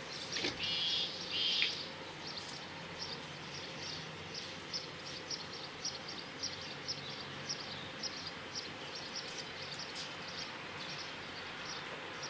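Outdoor ambience of chirping wildlife: short high chirps repeat a few times a second over a steady high-pitched whine, with two louder chirping calls about a second in.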